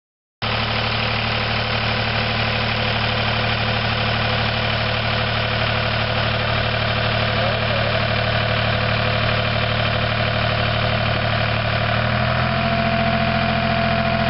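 Tractor engine running steadily at low speed while pulling a two-row planter through tilled soil, cutting in suddenly about half a second in. The engine note shifts slightly about twelve seconds in.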